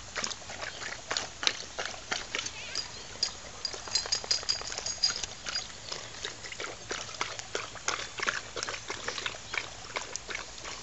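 Dogs lapping water from a plastic tub: a rapid, irregular run of wet tongue slaps, several a second, with a garden hose running water into the tub.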